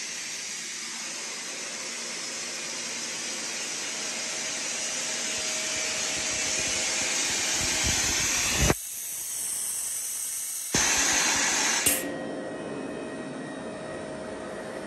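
Sullair ES-8 25 hp rotary screw air compressor running: a steady, loud rushing hiss with a faint hum. The sound cuts out for about two seconds past the middle, then comes back with a few steady tones over the hiss.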